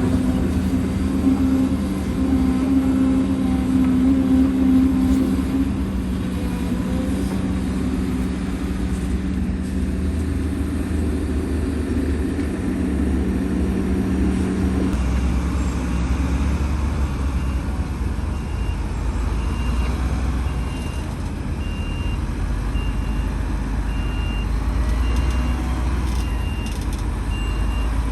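Heavy diesel construction machinery running, an excavator working with dump trucks, its engine note shifting about halfway through. From then on a truck's reversing alarm beeps steadily, about once a second.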